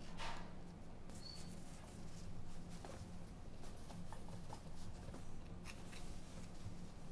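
Steady low hum of the ferry's machinery heard inside a small cabin, with soft rustling and a scatter of light clicks and taps as toiletries and a towel are handled.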